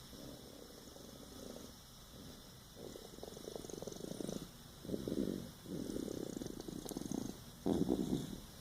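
Snoring: a run of slow breaths, each with a rasping snore, growing louder toward the end.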